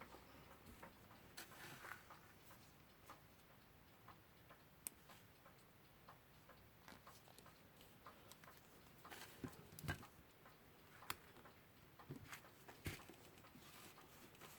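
Faint, irregular small clicks and taps of metal clock-movement parts and tools being handled, over near silence.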